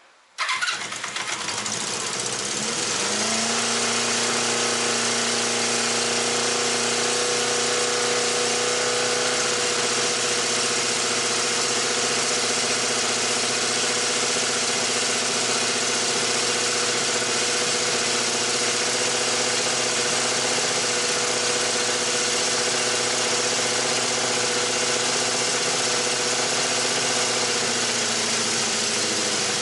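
Honda CB350F's air-cooled inline-four engine starting about half a second in, its revs settling within a few seconds into a steady idle. The owner is running it to trace an abnormal noise that he suspects is an exhaust leak.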